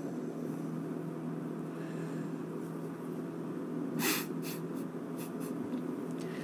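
Quiet room tone with a steady low hum. About four seconds in there is a short hiss, followed by a few faint ticks.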